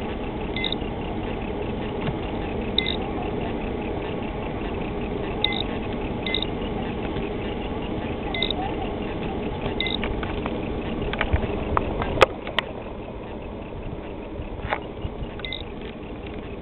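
The Ranger 481V boat's engine running steadily at low speed, with short high beeps sounding now and then. About twelve seconds in come a few sharp clicks, and the running sound drops to a quieter level.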